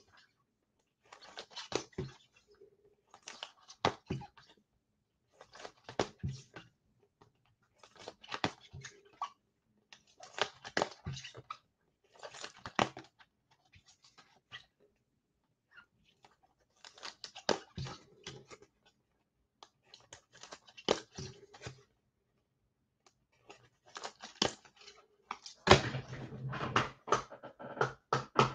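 Football trading cards being sorted by hand: short bursts of clicking and rustling about every two seconds, becoming louder and more continuous near the end.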